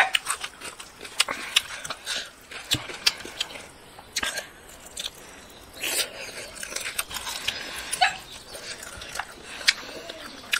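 Close, wet eating sounds: a boy chewing chicken heads and rice, with irregular lip smacks and sharp mouth clicks.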